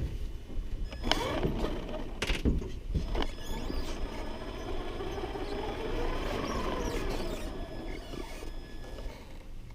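RC monster truck's motor whining as it drives, its pitch rising and falling with speed, with a few sharp knocks in the first three seconds.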